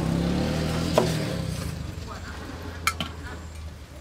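Cleaver knocking on a wooden chopping board while a raw pig leg is cut: a knock about a second in and a sharper one near three seconds, over a steady low hum.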